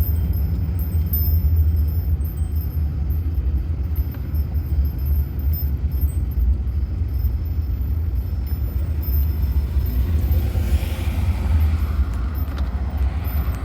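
Steady low engine and road rumble of a van, heard from inside the cabin as it drives slowly, with a brief rise of hiss about ten seconds in.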